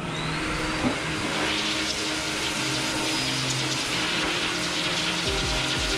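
Small pet blow dryer switched on, its motor spinning up with a brief rising whine, then blowing air steadily through the hose and nozzle.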